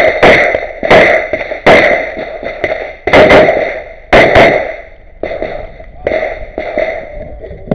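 STI 9x19 competition pistol (major power factor) firing a string of shots, singles and quick pairs, each with a ringing tail. From about five seconds in, the reports are quieter.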